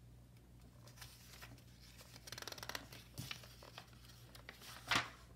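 Pages of a paper textbook being turned by hand: a brief rustle about two seconds in, then a sharp swish of a page flipping over near the end.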